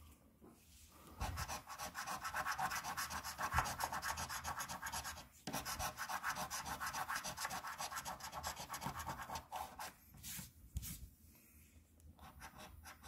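A coin scraping the coating off a paper scratch-off lottery ticket in rapid back-and-forth strokes. The scraping starts about a second in, breaks briefly near the middle, and stops about three seconds before the end, followed by a couple of light clicks.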